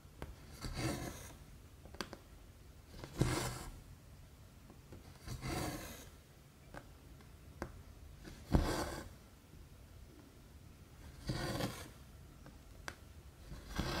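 Cotton embroidery thread pulled through 14-count aida cross-stitch cloth, a short rasping swish with each stitch, six times at a steady pace about every two and a half seconds. Faint small ticks of the needle on the fabric come between the pulls.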